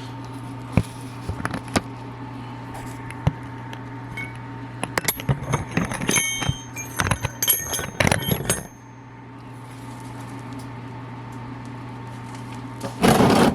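Metal hardware being handled: scattered clicks, then a run of clinking and rattling with ringing metallic tones, over a steady low hum. A loud knock or rustle comes near the end.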